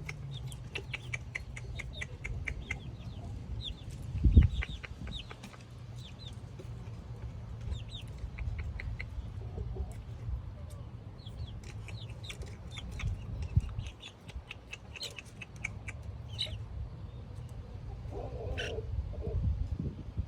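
Backyard chickens clucking, with many short, high chick peeps scattered throughout, over a steady low rumble. A single loud thump comes about four seconds in.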